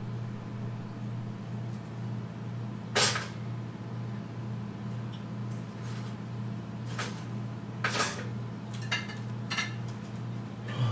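Kitchen clatter: a handful of sharp knocks and clinks of dishes and cupboard doors, the loudest about three seconds in, over a steady low hum.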